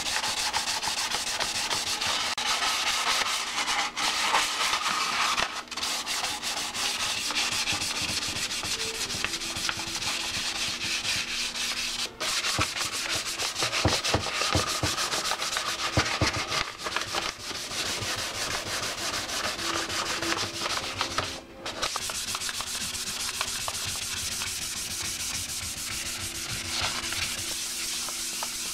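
Hand sanding of a Yamaha FZR fairing with fine 400-grit sticky-back sandpaper on a round hand pad: a steady scratchy scrubbing with a few brief pauses. It is the final fine sanding that gives the surface a tooth for primer.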